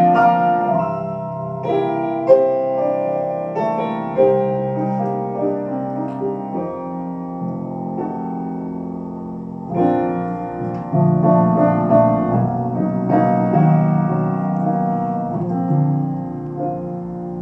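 Piano music: notes and chords struck and left to ring, growing fuller again about ten seconds in and fading toward the end.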